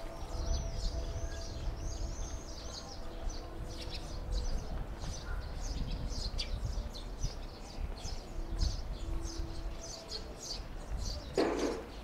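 Small birds chirping, a rapid run of short high chirps with no let-up, over a low rumble. A short louder noise breaks in near the end.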